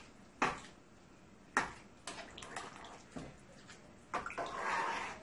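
A spoon stirring rice and chicken broth in a pot: six or so sharp clinks of the spoon against the pot, with a wet sloshing of the liquid about four seconds in.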